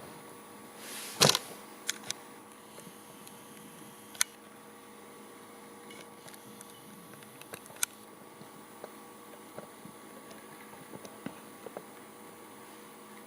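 Magnetic stirrer running with a steady faint hum, driving a small steel spinning top; a few sharp clicks break in, the loudest about a second in and others near two, four and eight seconds.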